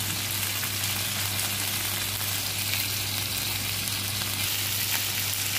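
Tulingan (bullet tuna) steaks sizzling steadily as they fry in hot oil in a pan.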